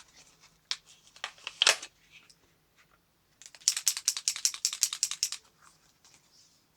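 Paint marker being shaken, the mixing ball inside rattling quickly, about ten clicks a second for nearly two seconds, after a few separate clicks and taps.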